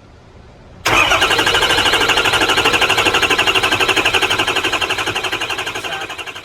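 Starter cranking a Ford 6.0L Power Stroke V8 diesel, coming in suddenly about a second in with a rapid, even pulsing. It is a long crank, the hard-start condition this engine has.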